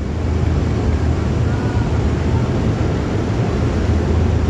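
Steady low rumble of a boat's engine running.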